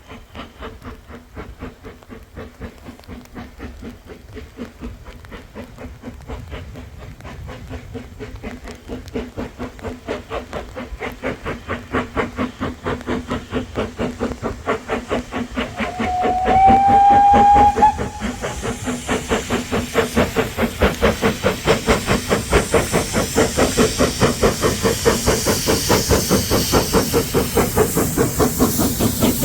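Steam locomotive working toward the listener, its rhythmic chuffing growing steadily louder. It sounds its whistle once for about two seconds, around the middle, and a hiss of steam grows near the end.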